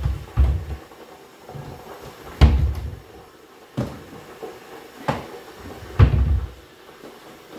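A series of about six sudden knocks and thumps a second or so apart from pots and a pan lid being handled on a gas hob.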